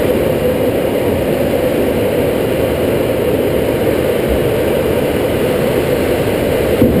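Steady rush of air over a glider's canopy in flight, an even low noise with no engine tone.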